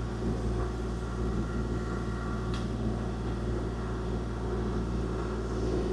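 Kubota KX040-4 mini excavator's diesel engine running at a steady hum, with one light click partway through.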